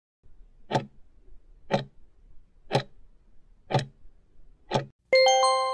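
Countdown timer sound effect ticking once a second, five ticks in all, then a bell-like chime with several ringing tones about five seconds in that slowly fades, marking the count reaching zero.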